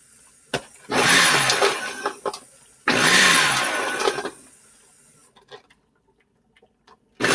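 Inexpensive countertop blender run in short pulses, three bursts of about a second and a half each, blending hard strawberries for a smoothie.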